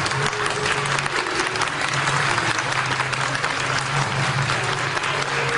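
A small group of people applauding, dense steady hand clapping.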